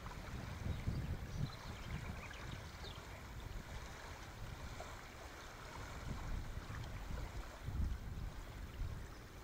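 Outdoor ambience: wind rumbling unevenly on the microphone over a steady faint hiss.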